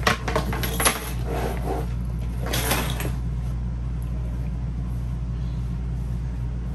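A 5.11 4-Banger sling bag being handled and set down: a few knocks and clatters in the first second, then a short rustle around two and a half seconds in, over a steady low hum.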